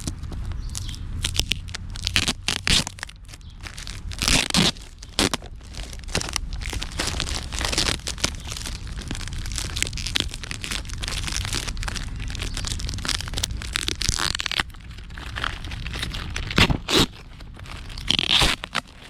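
Camera box packaging being handled and opened: irregular crinkling, rustling and crunching with scattered clicks and knocks, over a low steady hum.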